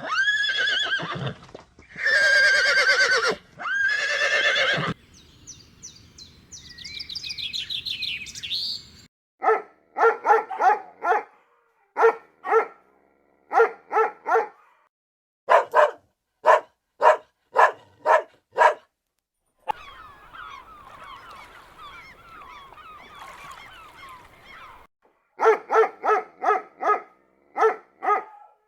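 A run of different animal calls: three long wavering calls, then thinner squeaky calls. A dog then barks in runs of short, evenly spaced barks, broken by a few seconds of faint chattering, and the barking starts again near the end.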